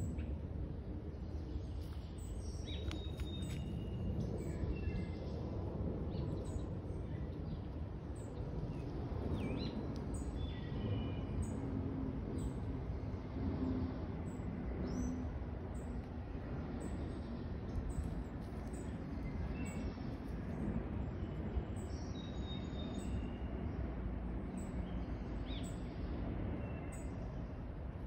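Small birds chirping now and then, short high calls scattered through, over a steady low background rumble.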